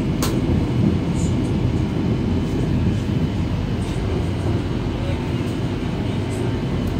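Steady low rumble inside a Shenzhen Metro Line 1 train car, with one sharp click about a quarter second in.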